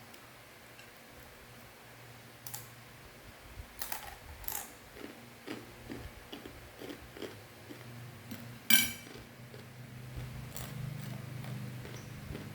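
Close-up chewing and crunching of a crisp fried macaroni snack, with scattered short crunches and one sharp, louder crackle about three-quarters of the way through.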